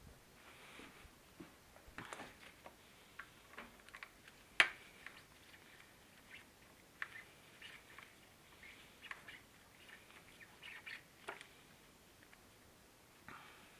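Faint, scattered small clicks and scrapes of hand work on a motorcycle's plastic side-panel fasteners and cap screws, with one sharper click about four and a half seconds in.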